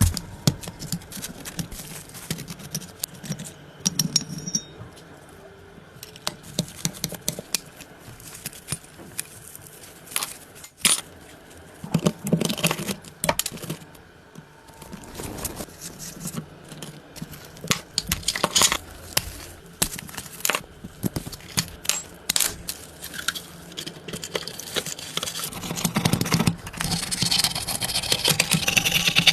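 Irregular clicks, knocks and scrapes of hard objects being handled. Denser, louder noise builds near the end.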